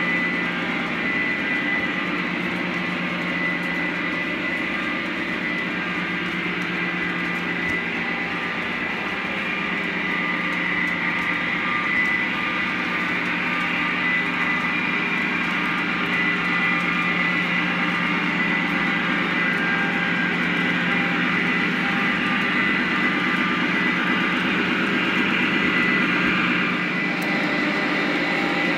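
Lionel O-gauge model train running on three-rail track: a steady hum of the cars' wheels and the locomotives' motors, with a high steady whine.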